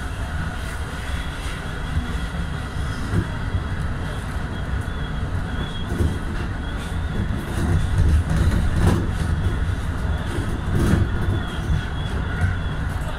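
Electric train running along the line, heard from the front of the cab: a steady low rumble of wheels and running gear, with a few sharp knocks over the track in the second half.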